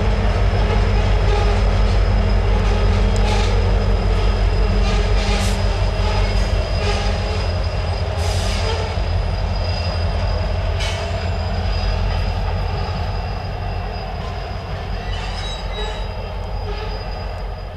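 Loaded coal hopper cars rolling past on steel wheels, a deep steady rumble broken by short, high wheel squeals. A pushing diesel locomotive at the rear of the train passes with its engine running, and the sound slowly fades as the end of the train pulls away.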